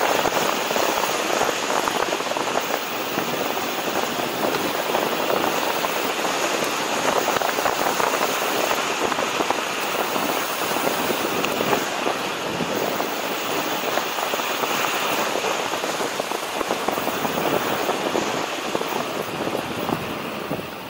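Wind rushing over the microphone and tyre noise from a dual-motor electric scooter riding along a paved road, with a faint steady high whine, dropping off near the end.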